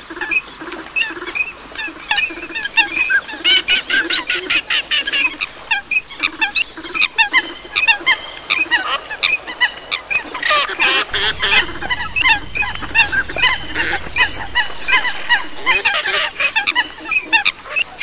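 A flock of waterfowl, coots with teal and pintail ducks, calling continuously: many short high whistles and chirps overlap throughout. Under them, a run of low repeated calls at a steady pace fills roughly the first half.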